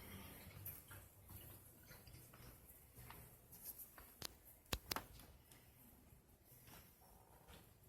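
Near silence: quiet room tone with three faint sharp clicks about halfway through.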